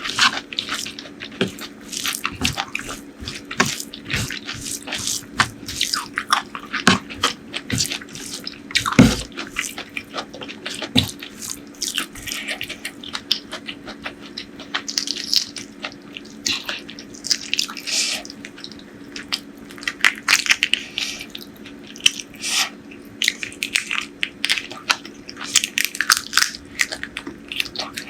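Close-miked mukbang eating of curry and rice: wet chewing, squelching and lip-smacking in a dense, irregular stream of quick clicks, over a faint steady hum.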